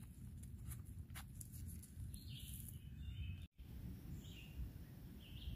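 Quiet outdoor ambience: a low rumble with a few light rustles or clicks in the first two seconds, and short bird chirps about two seconds in and twice more near the end. The sound cuts out for an instant a little past halfway.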